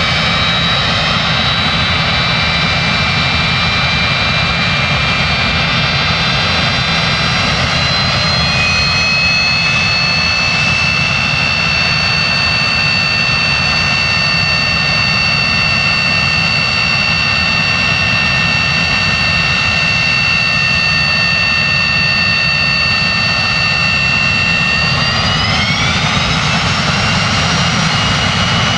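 Boeing 737-200's Pratt & Whitney JT8D turbofan engines running with a steady roar and a high whine. The whine steps up slightly about eight seconds in and climbs again near the end as the engines speed up.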